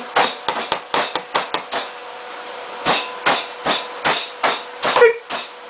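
Chicken being pounded out: rapid, uneven blows on the meat, several a second, with a pause of about a second partway through.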